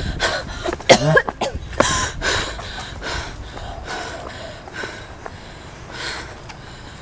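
A woman coughing close to the microphone. Several rough coughs and vocal bursts come in the first few seconds, then they die down to quieter noise.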